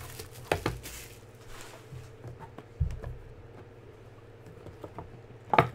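Hands handling a cardboard trading-card box and its plastic wrapper: a few soft taps and rustles, a dull thump about halfway through, and a sharp click just before the end, the loudest sound, over a faint steady hum.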